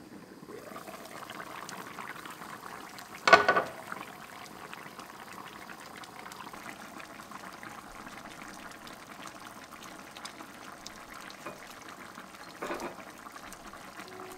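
Spicy Korean chicken stew (dakbokkeumtang) simmering and bubbling in a stainless steel pan, a steady bubbling hiss. A brief, loud clatter comes about three seconds in, and a softer one near the end.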